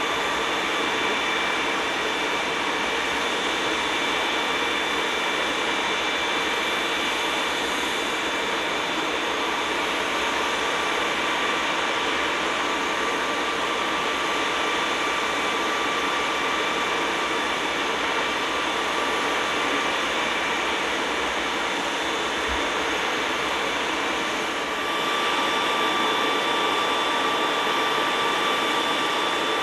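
Aircraft turbine engines running steadily: a continuous whine of several steady tones over a rushing hiss. The sound dips briefly about 25 seconds in, then comes back a little louder.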